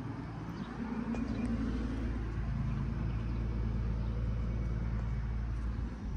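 A 2000 Bard 4-ton wall-hung heat pump running in cooling mode: a steady, even hum of compressor and fan. The level dips briefly near the end.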